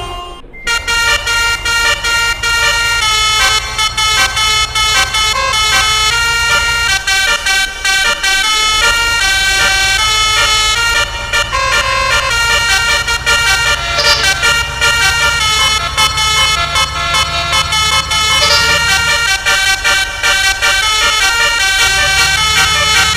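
Telolet multi-tone horn playing a tune, its notes stepping up and down in quick succession over a steady low hum that drops out twice.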